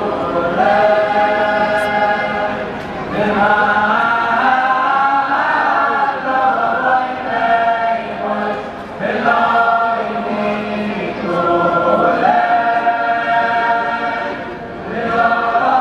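A large crowd of men singing a Hasidic melody together in long phrases, with brief breaks about every six seconds.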